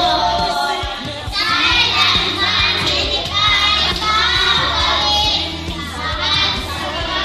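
A group of children singing a Christian praise song along with backing music that has a steady low bass line.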